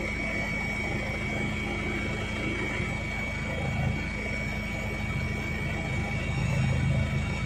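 Helicopter in flight: a steady drone of engine and rotor, with a high whine held on one pitch, swelling slightly near the end.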